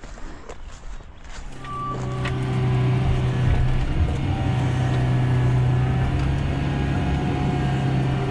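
Cat 312CL excavator's diesel engine coming in about a second and a half in, rising over a second or so and then running steadily, with a brief beep just after it comes in.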